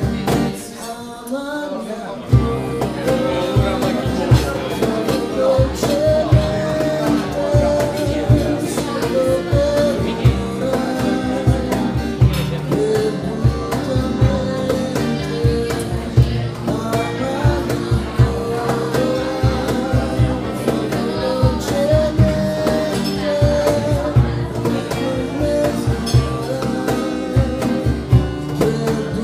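Live band playing a country-blues style song with guitar over a steady beat, and a voice singing. The music drops back briefly near the start and comes back in full about two seconds in.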